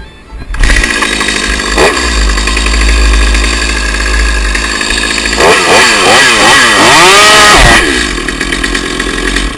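Two-stroke chainsaw of about 3 cubic inches running at full throttle as it is brought down onto safety chaps. About halfway through, the engine pitch swings rapidly up and down several times, climbs to a high held pitch, then falls, before the sound cuts off suddenly: the chain is being fouled by the chap fibres, which jam the drive sprocket.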